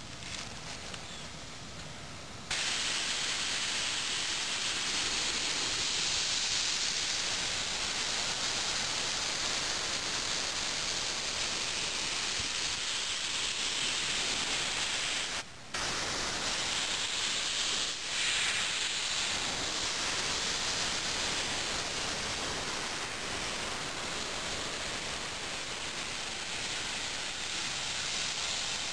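Grex Tritium airbrush with a 0.5mm nozzle spraying at 40 psi: a steady hiss of compressed air starting about two and a half seconds in, cutting out for a moment about halfway through, then running on.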